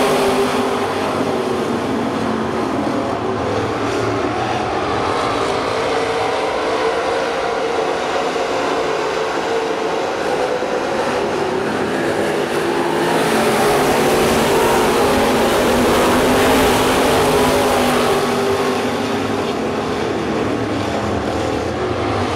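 A field of dirt-track race cars running at speed around the oval, several engines at high revs at once. The sound swells louder a little past halfway through, then eases off again.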